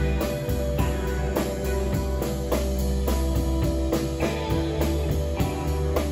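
Live rock band playing: sustained guitar and bass notes over a steady drum beat.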